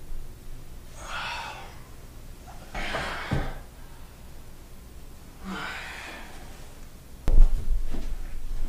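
A man breathing out heavily, three long sighs a couple of seconds apart. About seven seconds in comes a sudden low thud, the loudest sound, followed by a low rumble.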